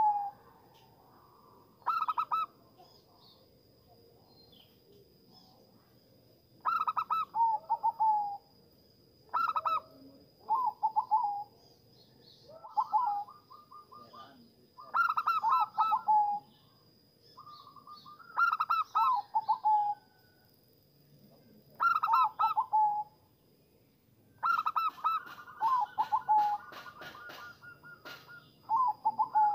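Zebra dove (perkutut) cooing: phrase after phrase of quick stuttering coo notes, one every couple of seconds, with a longer pause a few seconds in.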